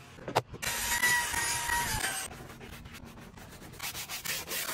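Cleaning on a car's interior surfaces. About half a second in there is a click, then cleaner sprays with a steady hiss for nearly two seconds. Near the end come quick rubbing strokes of scrubbing.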